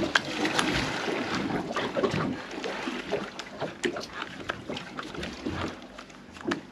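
Water sloshing and slapping against a small boat's hull, an even wash broken by many small irregular splashes.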